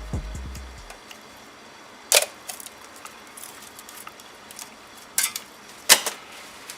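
Background music fades out within the first second, then a few sharp, isolated metal clicks and clinks from parts being handled during an engine teardown, the loudest about two and six seconds in.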